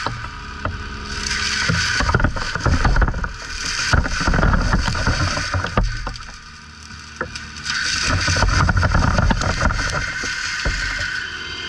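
Cat 299D3 compact track loader's diesel engine working, revving up and easing off under load, with a run of clanks and scrapes in the middle and a brief lull around six seconds in before it picks back up.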